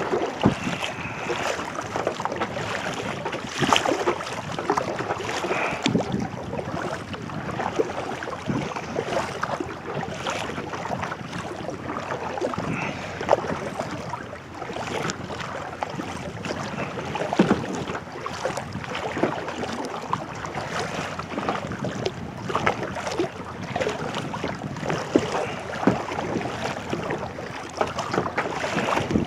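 Kayak paddle strokes splashing and water lapping around the kayak in irregular bursts, with wind blowing on the microphone.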